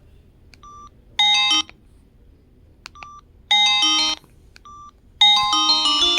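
Samsung SGH-X507 mobile phone giving three short key beeps, each followed by a polyphonic ringtone playing through the phone's speaker. The first two ringtones stop after less than a second, as when scrolling through a ringtone menu, and the third starts about five seconds in and keeps playing.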